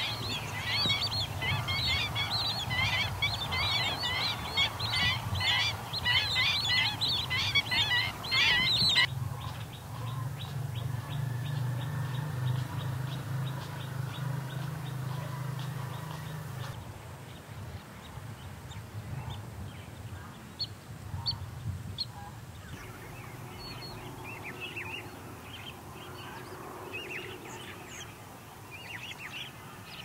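A flock of birds calling in flight, many rapid overlapping calls, for about nine seconds until it cuts off; after that, a low steady hum and then scattered short bird chirps.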